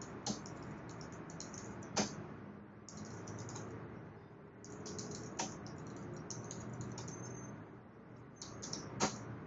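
Typing on a computer keyboard in quick bursts of keystrokes, with a few louder single key strikes in between.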